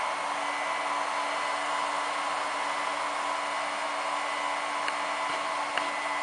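Cooling fans of UnA9 Plus 300 W LiPo balance chargers running steadily while charging a battery: an even whir with a fixed low hum tone. A couple of faint ticks come near the end.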